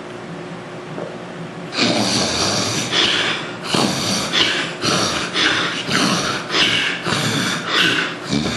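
A man snoring loudly, with rapid noisy breaths about one every 0.7 s, starting about two seconds in over a steady background hum.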